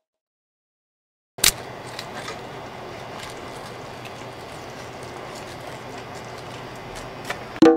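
A sharp click about a second and a half in, then steady kitchen noise with faint scraping ticks as a knife skins a fish fillet on a plastic cutting board. A short ringing tone sounds near the end.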